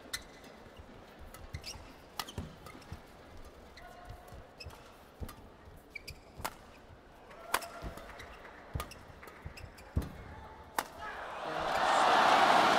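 Badminton rally: sharp racket strikes on a feather shuttlecock about once a second, with short squeaks of court shoes between them. About a second before the end, the rally ends and a large arena crowd bursts into loud cheering and applause.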